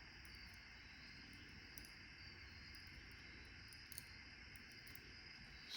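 Near silence with a few faint, light clicks of small brass lock pins from a disassembled padlock being handled and sorted.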